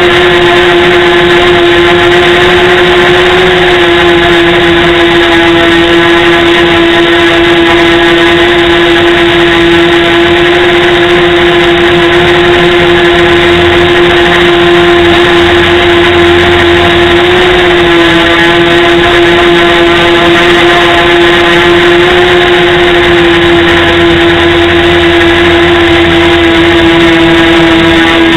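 Xuas MR 270 flying model's electric motor and propellers running at a steady cruise. It is heard loud and close through the small onboard camera, as one steady pitched whine that dips and recovers slightly a few times as the throttle changes.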